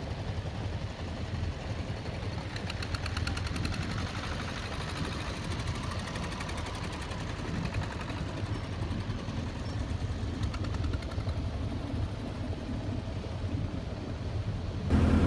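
Boat engine running steadily under way, a low drone with a constant rush of water and wind over it.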